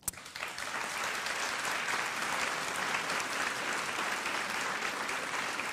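Audience applauding, a dense steady clapping that starts suddenly.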